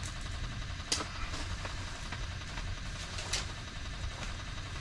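A steady low rumble, like an idling engine, with a few faint clicks.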